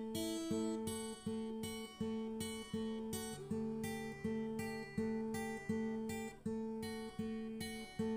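Background music: a guitar plays a steady, repeating pattern of notes, a new one about every two-thirds of a second.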